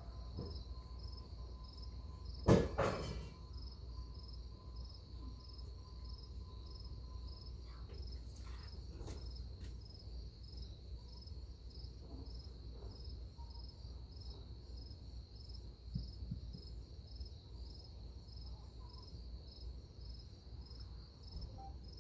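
Crickets chirping in a steady, even pulse. A single loud knock comes about two and a half seconds in, and a few faint clicks follow later.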